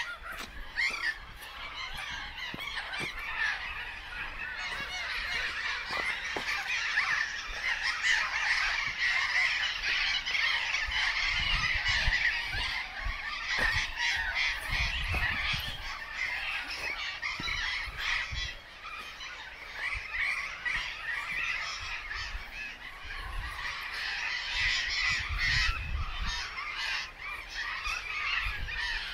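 A flock of birds calling continuously, a dense chorus of goose-like honks and calls, with low rumbling coming and going underneath at times.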